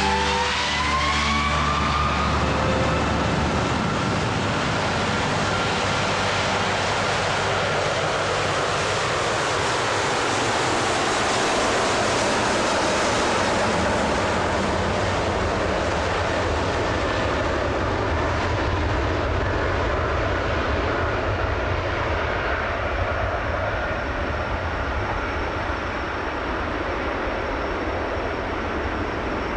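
Jet airliner taking off: its engines spool up with a rising whine over the first couple of seconds, then a steady, loud jet roar that eases slightly toward the end.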